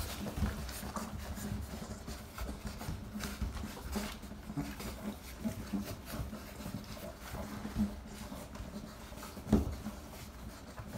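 Labrador retriever puppies suckling and jostling at their mother's teats: small irregular smacks and shuffling, with a louder knock about nine and a half seconds in.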